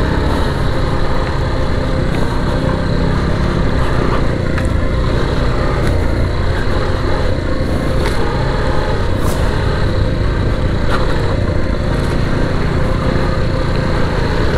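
Adventure motorcycle engine running steadily while the bike is ridden on a dirt trail, heard from on the bike.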